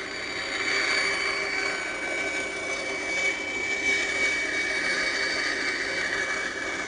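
Woodworking bandsaw running, a steady machine noise with a high whine held throughout.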